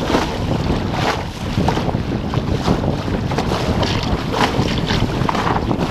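Wind buffeting the microphone over the rush of water along the hull of a Topper Topaz dinghy sailing through chop. Spray splashes over the bow several times.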